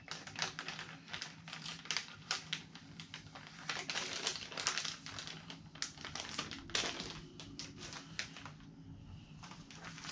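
Plastic soft-bait packages being handled, crinkling and rustling in a dense run of short crackles and clicks, easing off briefly near the end.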